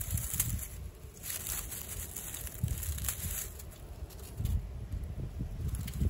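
Dry fallen leaves and dead grass crackling and rustling as a hand plucks mugwort shoots from the leaf litter, with a few short crackles, over the low rumble of wind on the microphone.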